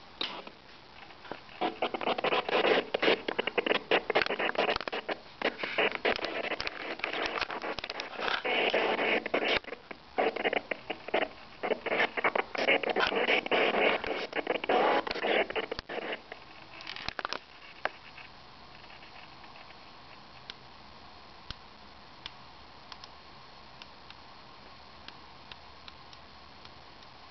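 Portable DAB+ radio's speaker playing a weak, distant station whose audio comes through choppy and broken, cutting in and out, then dropping out about 16 seconds in as reception fails, leaving only a faint hiss.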